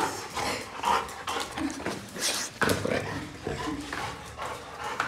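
Yellow Labrador making short, uneven whimpering and breathy noises, excited at being reunited with its owner.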